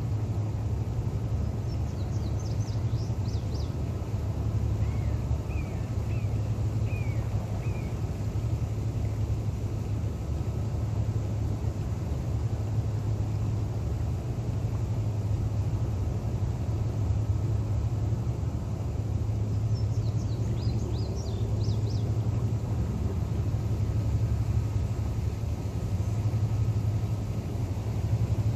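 Steady low engine rumble running without change, with small birds chirping briefly about two seconds in and again about twenty seconds in.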